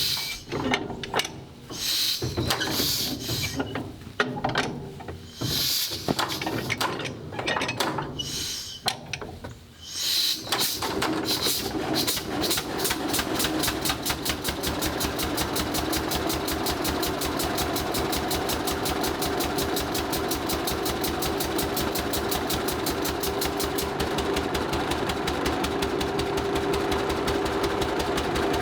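Large early tractor engine being started, with irregular clanks and hisses for about ten seconds as it is turned over. It then fires and settles into a steady, fast, even run. The engine is primed with gasoline through its priming cups and has the magneto retarded to keep it from kicking back.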